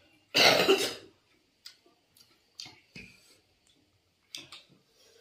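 One short, loud cough about half a second in, followed by scattered small clicks and smacks of eating with the hands.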